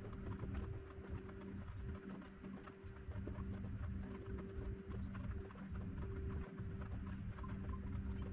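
Steady low electrical hum with an uneven low rumble and faint scattered ticks, like light handling at a workbench.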